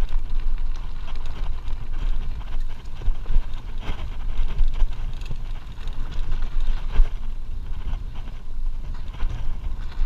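Wind buffeting the microphone on a fast mountain-bike ride over dirt and gravel, with tyre noise and occasional clicks and rattles from the bike over bumps.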